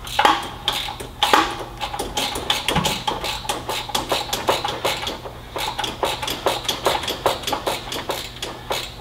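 Hand ratchet clicking as it turns a starter mounting bolt on a Caterpillar 3406B, the 3/8-inch drive working on a long extension. It gives a few louder clicks in the first second or so, then a steady run of rapid clicks from about halfway through.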